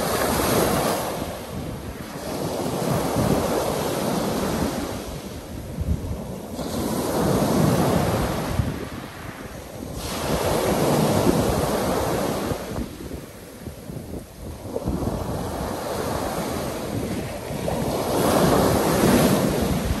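Black Sea surf breaking on a pebble beach, waves washing up over the stones and drawing back. The noise rises and falls in surges a few seconds apart.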